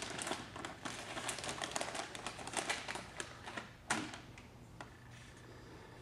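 A snack bag crinkling as hands rummage in it, with one sharp knock about four seconds in; after that only faint small noises.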